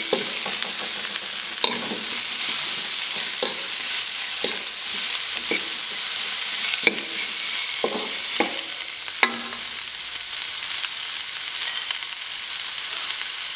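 Sliced carrots, onion and chilies sizzling in a hot oiled wok while a spatula stir-fries them, knocking and scraping against the pan about once a second. The spatula strokes stop about nine seconds in and the sizzle carries on.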